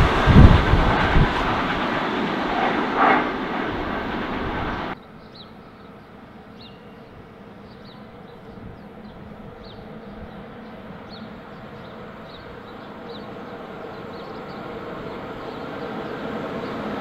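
Freight train of tank containers passing and running away, wheel clatter fading, until the sound drops off abruptly about five seconds in. Then a quiet stretch with faint high chirps while a second freight train, hauled by a red locomotive, approaches with a rumble that grows steadily louder toward the end.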